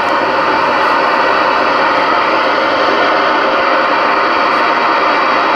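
Steady, even static hiss from a Stryker SR-955HPC CB radio's speaker with the squelch open, the receiver listening on an empty channel between transmissions.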